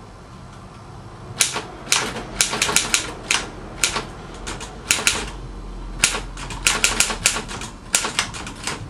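Keys being typed on: irregular sharp clacks, singly and in quick runs, beginning about a second and a half in.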